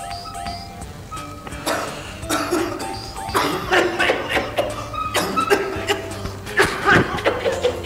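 Background music, with a string of short, sharp sounds over it from about two seconds in.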